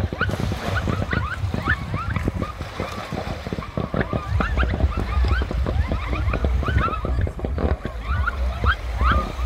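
Fireworks display going off: dense, irregular pops and bangs many times a second over a low rumble that swells about halfway through, with many short rising chirps mixed in.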